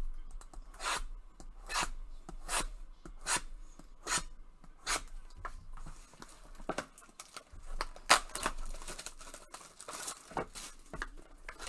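Clear plastic shrink-wrap on sealed trading-card boxes being handled and torn off by gloved hands: a run of short crinkling rips, about one a second at first, then irregular rustling and tearing.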